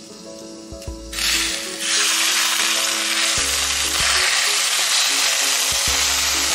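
Hot oil poured from a wok over ground dried chilies and chopped scallions, starting about a second in with a sudden loud sizzle that keeps going steadily: the finishing hot-oil pour for Sichuan boiled pork. Soft background music plays underneath.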